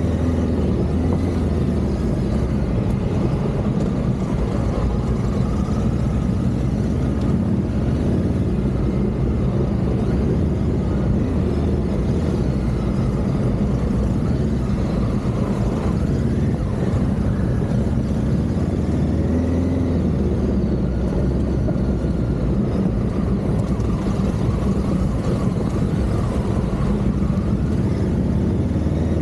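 Honda Africa Twin CRF1100's parallel-twin engine running steadily at low to moderate revs as the bike is ridden on a dirt track, its pitch rising and falling a little with the throttle.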